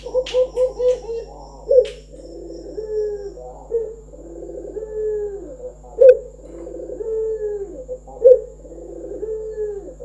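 Caged Barbary dove (puter) cooing. Each phrase is a loud clipped note followed by a long rolling coo that falls in pitch, and the phrases repeat about every two seconds.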